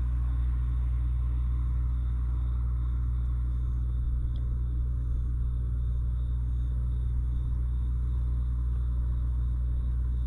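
Steady low rumble of a moving bus, engine and road noise heard from inside the cabin.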